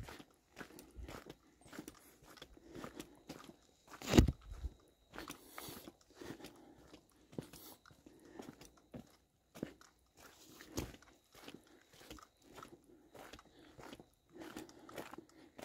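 A hiker's footsteps crunching along a wet dirt trail edged with snow, a steady walking pace of short crunches, with one louder thud about four seconds in.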